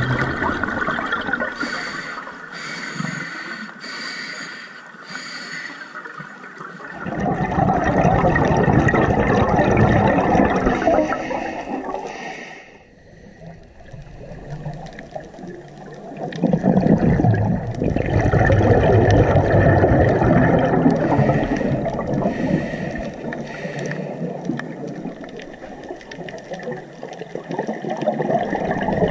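Scuba regulator breathing heard underwater: a quieter hissing draw of air, then long, loud bubbling exhalations twice, about seven seconds in and again about sixteen seconds in, with a quieter spell between them.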